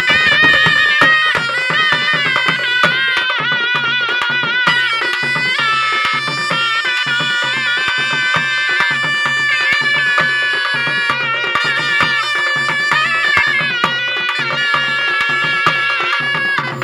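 Instrumental folk music: a sliding, ornamented melody line held over a steady, evenly paced drum rhythm.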